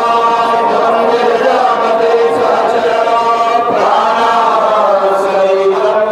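Several voices chanting an aarti hymn together in long held notes that slowly rise and fall, without pause.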